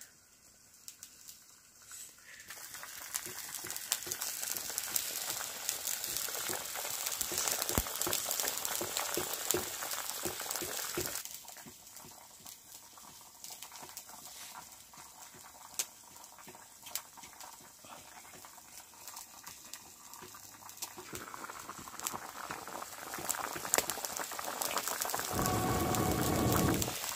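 A wok of vegetables bubbling and sizzling over a crackling wood fire, loudest for the first several seconds, then quieter, then building again. Near the end a louder, lower sound comes in.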